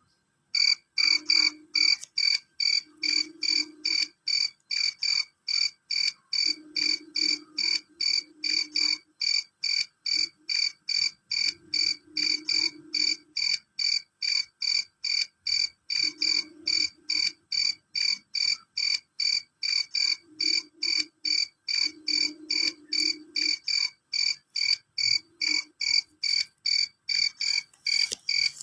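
A male cricket chirping loud and shrill, a steady run of short, evenly spaced high chirps, about two to three a second, beginning about half a second in.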